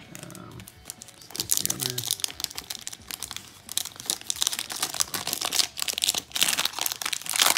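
Plastic foil wrapper of a football trading-card pack being torn open and crinkled in the hands, a dense run of sharp crackles from about a second in.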